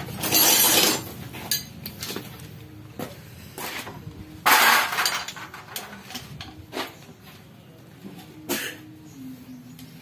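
Metal clinks and knocks from gearbox parts being handled and tapped during a transmission teardown, with two loud bursts of noise of about a second each, one at the start and one about halfway through.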